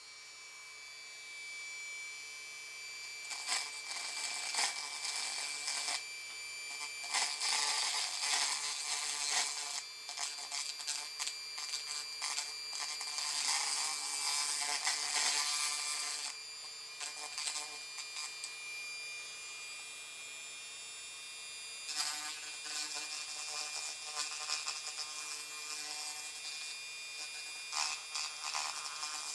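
Corded Dremel rotary tool running at low speed with a steady high whine, its small bit grinding in uneven bursts as it cuts old epoxy out of the balsa wood block at an armature joint.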